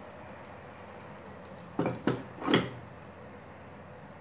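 Faint, steady sizzle of hot frying oil in a pot. About two seconds in come three quick knocks, the last the loudest: a slotted spoon of fried nuts being tapped against a bowl to empty it.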